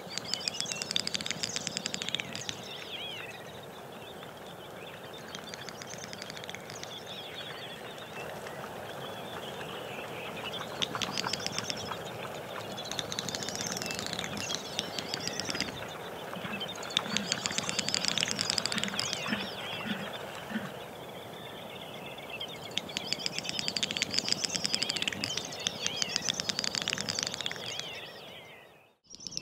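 Great snipe lekking: repeated bouts of rapid clicking that run into high, warbling twitters. There are about five bouts, each lasting one to five seconds, with short gaps between them.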